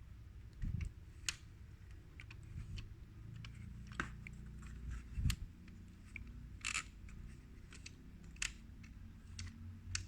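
Light, irregular plastic clicks and clacks from a Cambridge Audio Azur 640C CD player's freshly reassembled loading mechanism as it is tried out, its parts moving through their travel.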